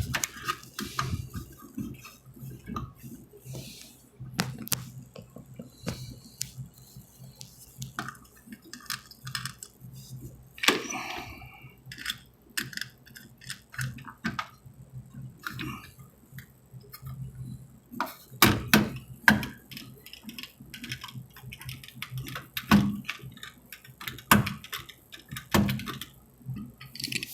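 Irregular clicks, taps and light metallic clinks as electrical wires are tucked into a junction box and its cover is fitted over them.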